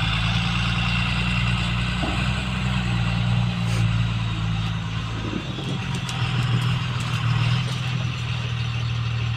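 Diesel engine of a JCB 3DX backhoe loader running steadily, with small shifts in its note around the middle.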